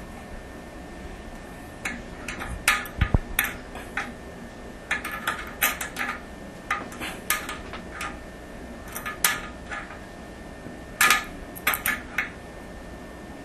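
Small adjustable wrench clinking against the metal nut and bolt in irregular clicks and short clusters as the toilet's tank-to-bowl bolt is snugged down, with one dull knock about three seconds in.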